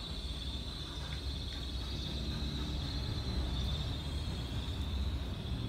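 Insects chirring in a steady, high, unbroken drone over a low rumble.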